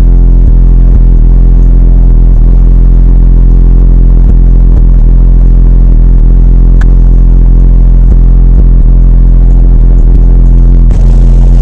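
Soundstream BX-15 car subwoofer playing a sustained, very deep bass note at full volume, heard inside the car. The level is so high that it overloads the recording into a flat, distorted drone.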